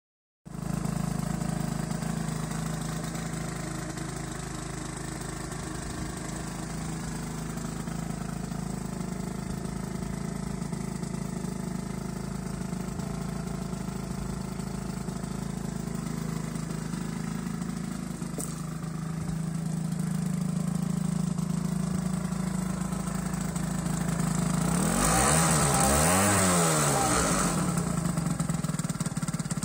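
Aprilia SR50 Morini scooter's 50cc two-stroke engine idling steadily once warm. About 25 seconds in, the engine is revved once, rising and falling in pitch, and the rear wheel spins up on its stand.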